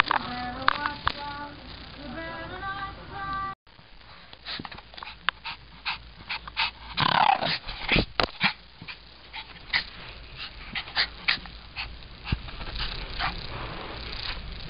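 Shih tzu growling and snarling as it attacks the camera, with many sharp clicks and knocks as it mouths and bumps against it, and a louder growl about seven seconds in.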